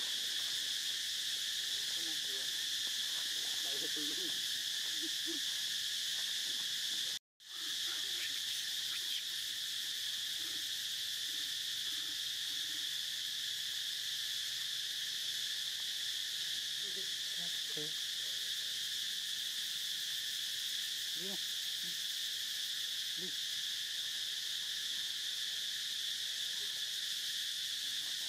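Steady high-pitched drone of insects, broken by a sudden momentary cutout about seven seconds in. Faint short low calls come through now and then.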